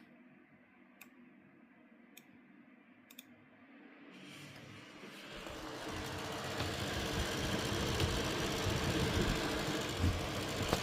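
Fans of a Gigabyte Radeon RX 7900 XT graphics card spinning up, rising over a few seconds and then running loud and steady with a rough grinding noise, a fault in a card only two months old. A few faint clicks come before the fans ramp up.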